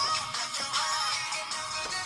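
Background pop music.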